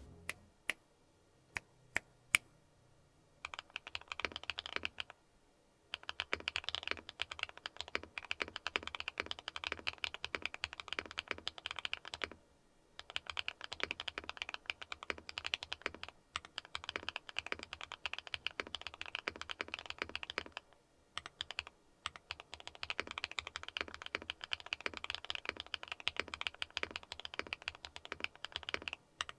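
Akko x HMX Mirror linear mechanical keyboard switches, factory-lubed, in a Neo 70 keyboard being typed on. A few single keystrokes come first, then fast typing runs with brief pauses between them.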